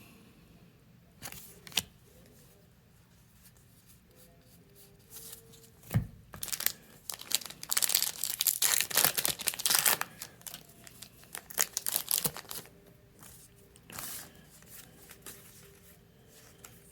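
Foil booster pack of trading cards being torn open and its wrapper crinkled, with a few sharp clicks first; the tearing and crinkling is thickest in the middle few seconds, then comes in shorter bursts.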